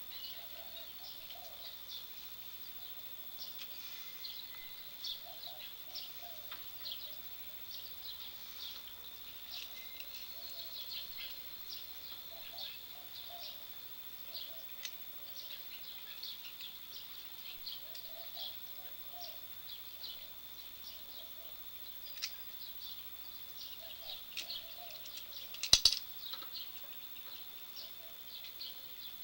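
Outdoor ambience of birds chirping over a steady, high-pitched insect drone, with one sharp knock near the end.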